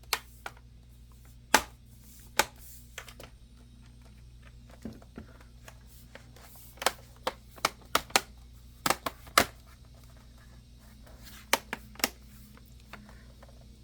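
Irregular sharp clicks and taps of a laptop's replacement screen panel and its plastic housing being handled and positioned. They are clustered around two seconds in, between about seven and ten seconds in, and again near the end.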